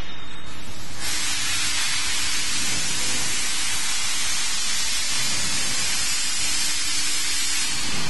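SD-025 electric cable stripping machine running, with a loud steady hiss over a faint low hum. The hiss starts about a second in and stops shortly before the end.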